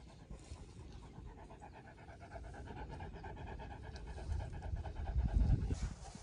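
Fila Brasileiro panting rapidly and rhythmically with its mouth open. A low rumble builds underneath and is loudest about five seconds in.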